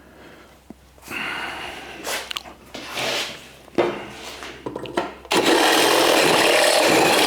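Power drill boring holes in 16-gauge sheet metal, run in several short bursts and then held steadily through the metal for the last two seconds.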